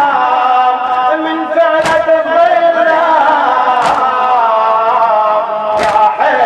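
Male voice chanting a Shia latmiya lament in a long, wavering melody, with a crowd striking their chests together in a slow beat about every two seconds.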